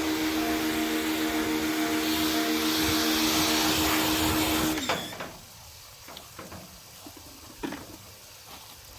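SCA 1450 psi electric pressure washer running: a steady motor hum under the hiss of the water spray, which cuts off suddenly about five seconds in as the hum drops away. Faint scattered clicks follow.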